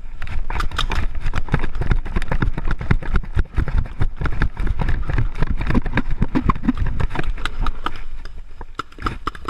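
Running footsteps with the steady rattle and knock of gear against the body-worn camera: a dense, irregular clatter with heavy low thuds that starts abruptly and eases near the end.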